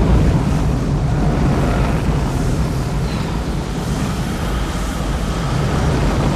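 Film sound effect of a tornado's wind: a steady, loud rush of noise with a deep rumble underneath, no sharp blasts.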